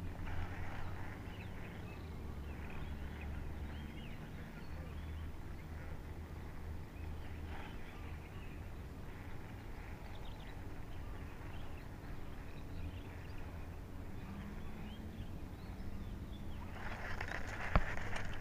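Faint, scattered bird calls over a low steady hum of open-air background, with a short sharp click near the end.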